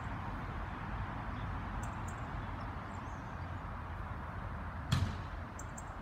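Steady background noise on an outdoor railway platform, with one sharp knock about five seconds in.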